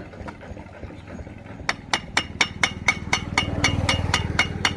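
Hammer blows on metal in a quick, even series, about four to five a second, starting a little under two seconds in, with a low engine hum underneath. The blows are working a cut core loose from a bituminous road.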